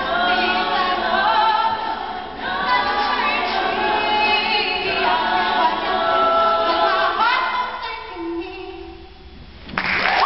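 Female a cappella group singing, voices only, in close harmony, with the voices sliding upward about seven seconds in. The singing then thins to a faint low held note before a sudden loud burst of sound near the end.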